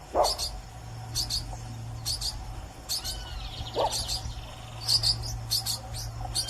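Birds chirping: short, high double chirps repeating about once a second, with a louder falling whistle near the start and another about four seconds in, over a low steady hum.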